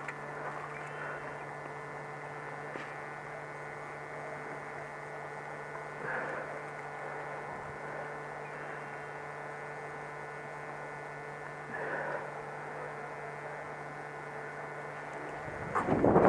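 Steady electrical hum with hiss, a low tone with fainter higher tones held without change. A much louder burst of noise comes in just before the end.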